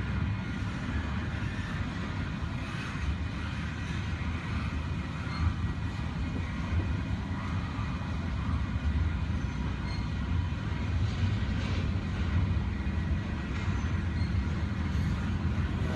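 Freight train rolling past: a steady low rumble of wheels and cars on the rails, with faint metallic squeal and scattered clanks.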